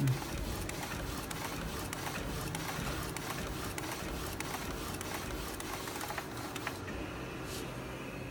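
Edible inkjet printer's print-head carriage running back and forth over the tray, a steady mechanical whirr with many quick clicks. About seven seconds in the clicking eases and a thin steady whine is left.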